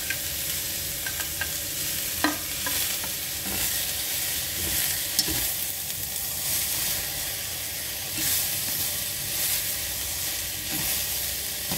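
Shredded cabbage, carrot and onion sizzling in olive oil in a stainless steel pan over high heat, with a steady hiss. The vegetables are tossed with chopsticks that click against the pan now and then.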